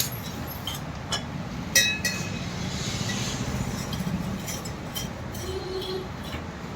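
A few light metallic clinks, mostly in the first two seconds, over a low steady rumble.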